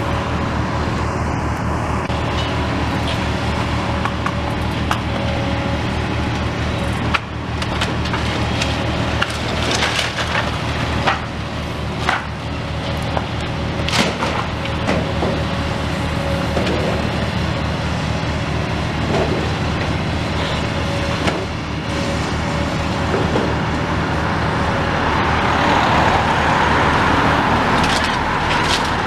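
Hyundai 220LC excavator's diesel engine running steadily while its demolition grab tears at a brick and timber building, with repeated sharp cracks and knocks of splintering wood and falling masonry. Near the end a car passes close by with a rising rush of tyre and engine noise.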